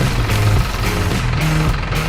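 Loud background dance music with a steady beat and a stepping bass line.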